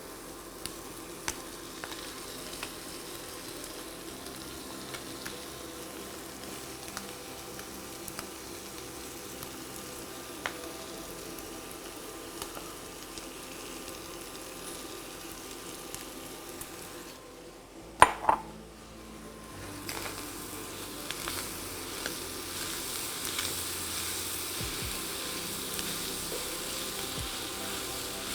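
Rice noodles, chicken and sauce sizzling in a hot pan while being stirred, with light clicks of the utensil against the pan. About two-thirds of the way through there is one sharp clank, and after it the sizzle gets louder.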